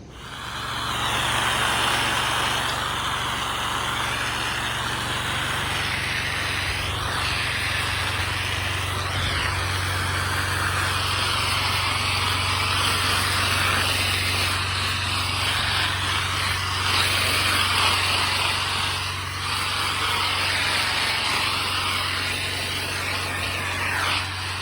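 Pressure washer running: a steady engine drone under the loud hiss of the high-pressure water jet, the hiss wavering as the spray moves. It starts abruptly and carries on throughout.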